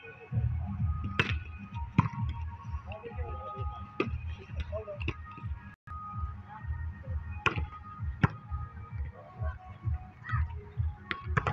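A volleyball being struck several times at irregular intervals, each hit a sharp smack, over distant voices and faint background music.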